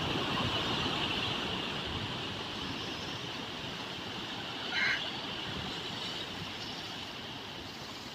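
Steady rushing noise of moving water, slowly fading, with one brief high squeak just under five seconds in.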